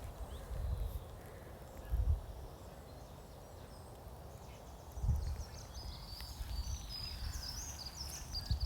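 Outdoor nature ambience: a bird sings a run of high chirps in the second half, over low rumbling gusts that come and go every second or few.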